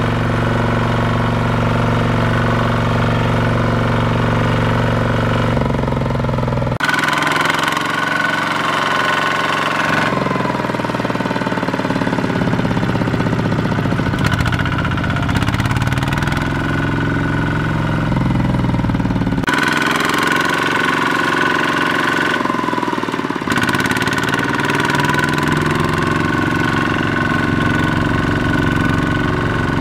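Kubota ZT155 single-cylinder diesel on a two-wheel walking tractor chugging under heavy load as it pulls a trailer through deep mud. The engine speed dips and recovers several times as it labours, and the sound changes abruptly at a few points between clips.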